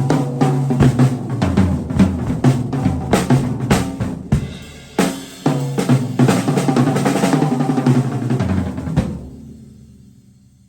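Vintage 1960s Ludwig double bass drum kit played solo: busy fills of drum hits with cymbals over the bass drums. It ends on a last hit about nine seconds in that rings out and fades away.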